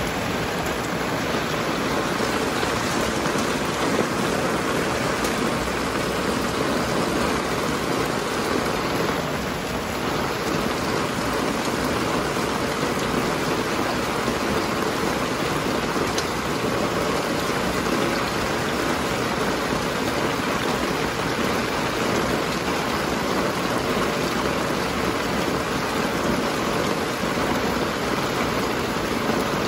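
Steady, even rushing noise, like rain or running water, with no breaks and no distinct events.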